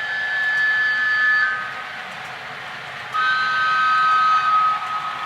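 Two-tone horn of a sound-fitted OO gauge model of the Bulleid diesel 10202, played by its sound decoder through a small speaker: one blast ends about a second and a half in, and a second, slightly lower-pitched blast starts about three seconds in and lasts under two seconds.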